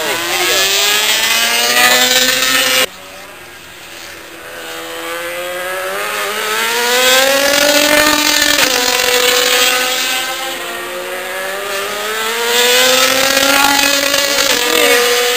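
MotoGP racing motorcycles' 800 cc four-stroke engines at high revs, the pitch climbing and falling in long sweeps as the bikes accelerate, shift and pass. The sound drops off abruptly about three seconds in, then builds again as another bike comes through.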